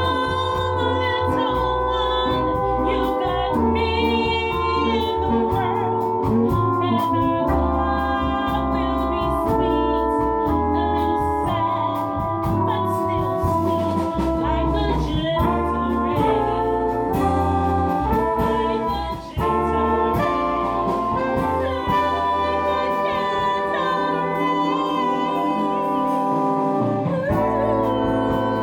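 A woman singing a bossa nova through a microphone, backed by a live band with brass and keyboard.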